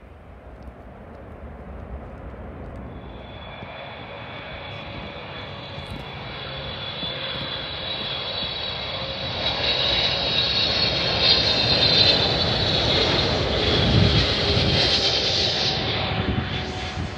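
Boeing 777-200LR's GE90 turbofans on final approach, growing steadily louder as the airliner nears and passes low. A high fan whine rides over the jet rumble from a few seconds in. The sound is loudest in the last several seconds, then starts to fade.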